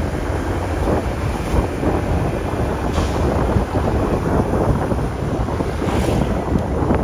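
Wind buffeting the microphone on a moving motor scooter, a steady low rumble of wind and road noise.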